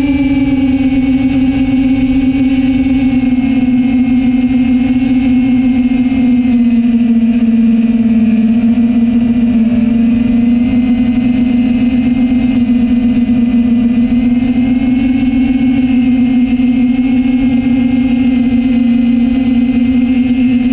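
An FPV quadcopter's electric motors and propellers buzz steadily, heard from on board. The pitch dips slightly and rises again with the throttle, over a low rumble.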